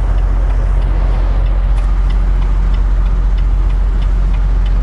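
Semi truck's diesel engine running steadily at low speed, heard from inside the cab, with the turn signal ticking about three times a second.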